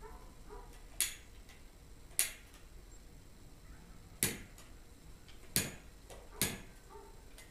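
Firewood crackling in a wood cook stove's firebox: five sharp pops at irregular intervals.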